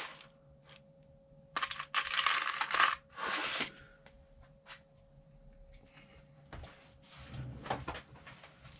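Small metal parts of a disassembled suspension seatpost clinking and rattling as they are handled, with a dense stretch of rattling about two to four seconds in and scattered light clicks around it.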